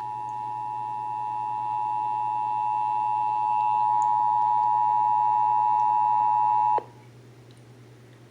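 Emergency Alert System two-tone attention signal: 853 Hz and 960 Hz tones sounding together as one steady, harsh tone for about seven seconds, then cutting off suddenly. It marks the start of an emergency alert, here a required monthly test.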